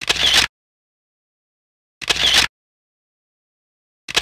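The same short, noisy editing sound effect played three times, about two seconds apart, with dead silence between.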